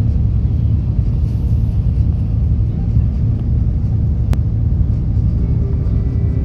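A boat's engine running with a steady low drone, heard from inside the cabin behind the window glass.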